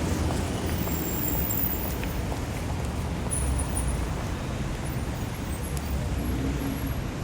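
City street traffic ambience: a steady rumble of cars passing and engines running, with a few faint high-pitched squeaks.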